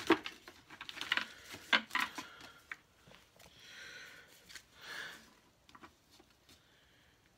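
Pokémon trading cards and booster-pack wrapping being handled: quick clicks and taps for the first few seconds, then two short rustles, fading out near the end.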